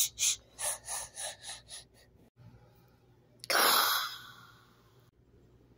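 A person breathing into the microphone: a run of short puffs that fade away, then one loud gasp-like breath about three and a half seconds in.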